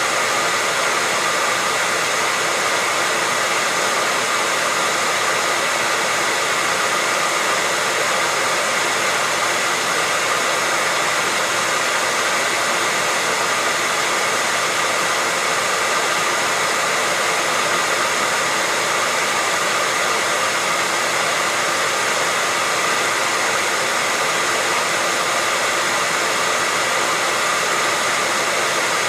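Hair dryer running steadily: a constant rushing blow of air with a faint steady whine from its motor and fan.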